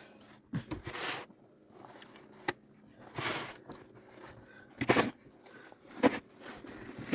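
Snow crunching and scraping in about six separate strokes, as a path is cleared or trodden through deep snow, with one sharp click midway.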